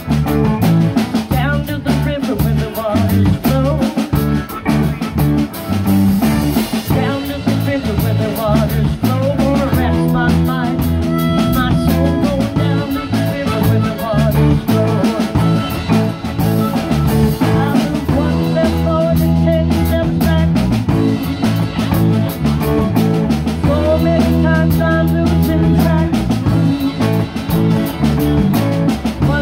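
Live band playing with a steady drum-kit beat: a harmonica played through a microphone over electric guitar and acoustic-electric guitar.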